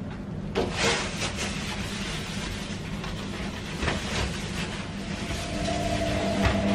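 Scrubbing a stainless steel sink drainboard with a soapy scrubbing pad: continuous rough rubbing with a few sharper scrapes. A steady low hum runs underneath, and a higher steady tone joins near the end.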